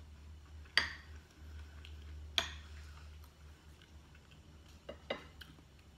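Metal knife and fork clinking on a dinner plate: two sharp clinks about a second in and around two and a half seconds, then three quicker ones close together near the end.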